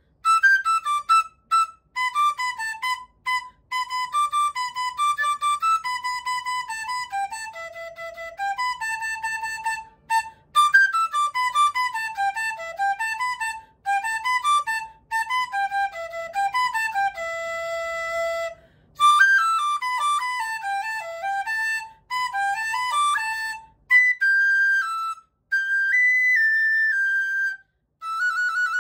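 G-key bangdi, a Chinese bamboo transverse flute, playing a lively folk melody solo: quick runs of short notes broken by brief breath pauses, one long held low note about two-thirds of the way through, and a few longer high notes near the end.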